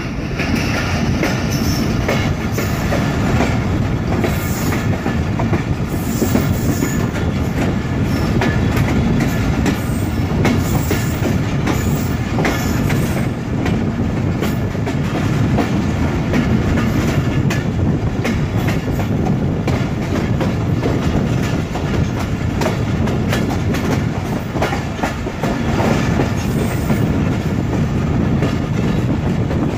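Running noise of a moving Sukkur Express passenger train, heard through an open coach door: a steady rumble of wheels on rails with frequent rapid clicks from the rail joints. Near the end the train crosses points to change tracks onto the main line.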